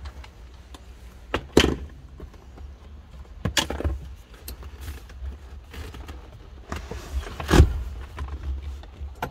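Clunks and rattles from a Toyota Alphard/Vellfire third-row seat being worked: a ratchet and socket set lifted off the cushion, and the seatback release pulled to lay the seat down. Three louder knocks come about one and a half, three and a half and seven and a half seconds in, with lighter clicks between.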